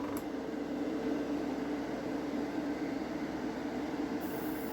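Airbrush compressor running with a steady hum while thinned gloss red paint is sprayed onto a diecast car body.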